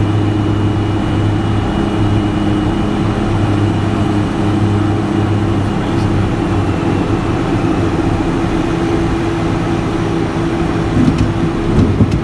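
Piper Cheyenne I's twin Pratt & Whitney PT6A turboprop engines and propellers running steadily, a low drone with a faint high turbine whine. A few brief knocks come near the end.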